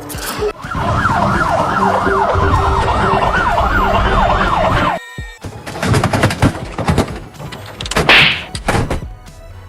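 Siren in a fast, repeating rising-and-falling yelp, about three cycles a second, that cuts off abruptly about halfway through. After it comes a scatter of clicks and knocks.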